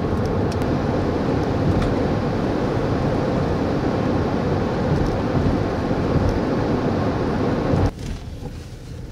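Steady road and wind noise of a car driving, heard from inside; it cuts off sharply about eight seconds in.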